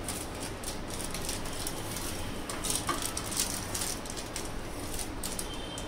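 A baking tray is handled as it comes out of an oven, giving scattered light clicks and rustling over a steady low hum.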